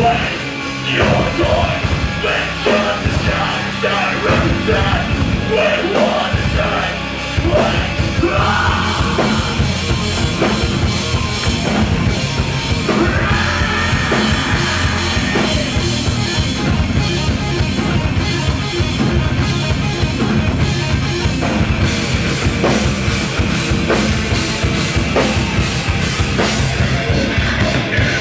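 Live heavy rock band playing loud: distorted electric guitars and bass over a drum kit with many cymbal crashes, and shouted vocals at times.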